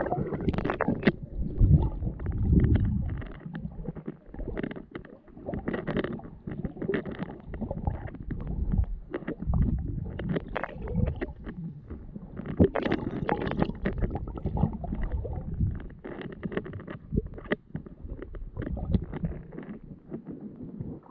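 Muffled underwater noise from a camera held below the lake surface: irregular low rumbling and sloshing from the swimmer's movement through the water, with scattered clicks and crackles.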